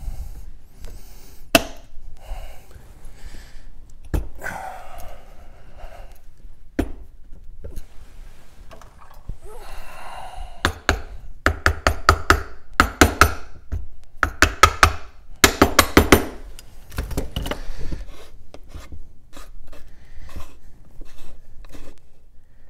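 A soft-faced mallet tapping the metal end cap of an electric dirt bike's motor down onto its housing, seating the cap during reassembly. The taps come in quick runs from about halfway through, with single knocks and handling clatter before them.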